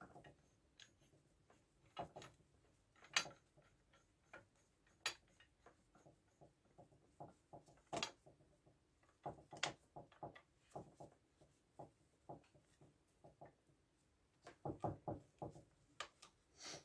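Faint, irregular metal clicks and taps from a coil-spring compressor clamp being fitted onto a car shock absorber's coil spring and its threaded rod and nut turned by hand, with a quicker run of clicks near the end.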